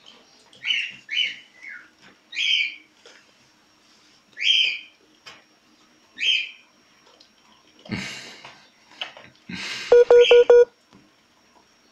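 Miniature schnauzer puppies squeaking and whimpering in short high-pitched cries, about six of them over the first seven seconds. A rustle follows about eight seconds in, then a loud, brief buzzing rattle about ten seconds in.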